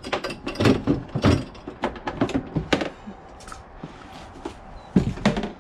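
Quick-release cooler mount being undone by hand: a quick run of clicks and knocks from the latch and the hard cooler shifting in its metal mount, then one loud thunk about five seconds in as the cooler comes out.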